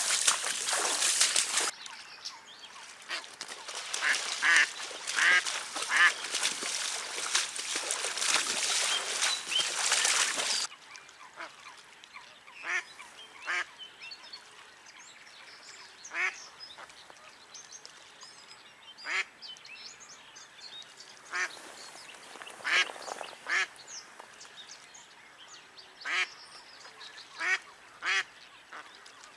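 A live decoy hen duck quacking in short calls, one every one to three seconds. For the first ten seconds these are partly covered by the swish and splash of waders moving through flooded grass and shallow water.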